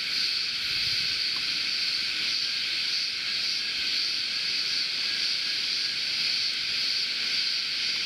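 A steady, high-pitched chorus of insects in sunlit bushland, an unbroken shrill drone that does not change.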